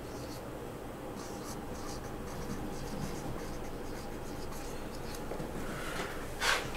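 Marker pen writing on a whiteboard: a series of faint, short scratchy strokes, with a brief louder hiss near the end.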